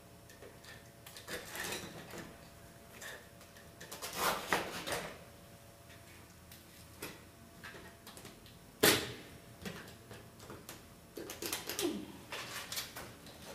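Painted linen canvas being cut through with a blade: short, scratchy rasps at irregular intervals, with one sharp snap about nine seconds in.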